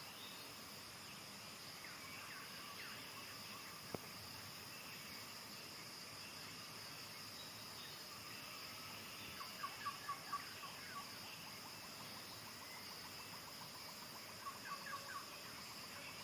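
Steady high-pitched insect drone in the background, with two short runs of quick bird chirps, about five notes each, just past the middle and again near the end. A single sharp click comes about a quarter of the way in.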